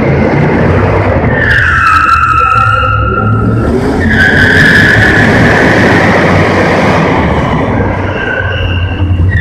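1977 Ford F100 pickup's engine running hard under a steady low rumble, its tyres squealing as they skid on the smooth concrete floor. There are two long squeals, the first starting about a second and a half in and the second about four seconds in.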